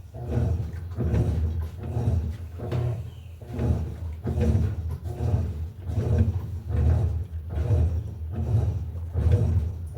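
Electrolux LTE08 top-load washing machine agitating a load of clothes: the agitator churns back and forth in a regular rhythm of low swishing strokes, about three every two seconds, water and laundry sloshing with each stroke.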